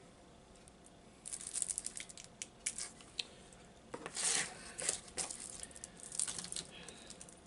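Plastic candy wrapper crinkling and tearing as it is handled, in irregular crackling bursts that start about a second in.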